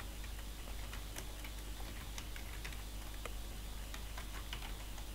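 Quiet background noise: a low steady hum with scattered, irregular faint clicks.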